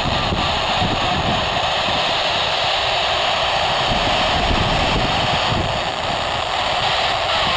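Steady FM static hiss from a handheld amateur radio transceiver's speaker, open on the SO-50 satellite downlink with no voice coming through.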